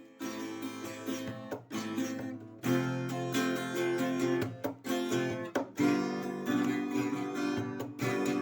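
Music: acoustic guitar strumming chords, the accompaniment fuller from about two and a half seconds in.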